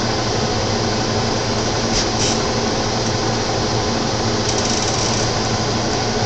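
Steady hum and hiss of room ventilation, with a few faint clicks about two seconds in and again near the middle.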